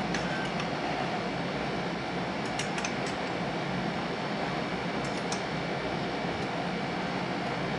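Steady hum of a fan or air conditioner in a small room, with a few faint light clicks of screwdrivers being handled and hung on pegboard hooks, in small clusters near the start, about three seconds in and about five seconds in.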